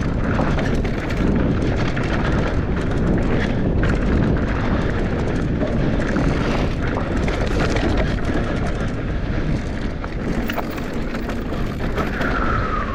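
Wind buffeting the action camera's microphone over the rumble of mountain bike tyres on a dirt trail at speed, with rattles and knocks from the bike over the ground.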